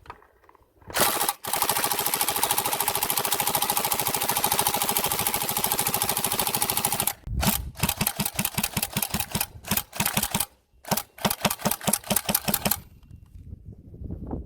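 Tokyo Marui SCAR-H electric airsoft rifle firing on full auto. A single shot is followed by one long continuous burst of about six seconds, then a string of short bursts, which stop shortly before the end.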